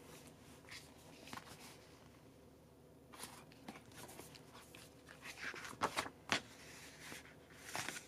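Faint paper rustling as a photobook album's cover and pages are handled and opened, with a few short, louder brushes of hands on paper from about three seconds in, most plainly around six seconds in and just before the end.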